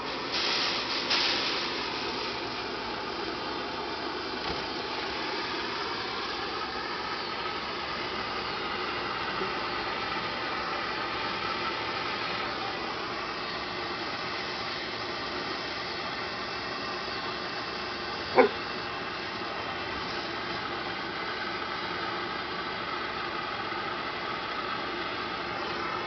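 Handheld gas torch burning with a steady hiss as its flame is played into a large paper sky lantern to preheat the air inside. A brief sharp sound about two-thirds of the way through is the loudest moment.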